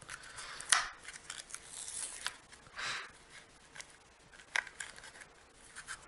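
Plastic package of soft-plastic crappie grubs being torn open: crinkling and tearing with scattered sharp little clicks.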